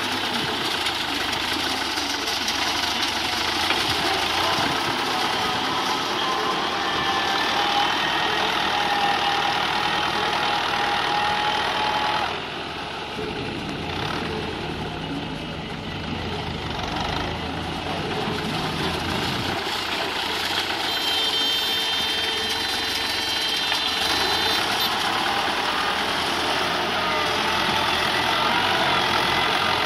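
Fiat 640 tractor's diesel engine running steadily as it works the blade and cultivator through loose soil. It eases off about twelve seconds in and picks up again around twenty seconds.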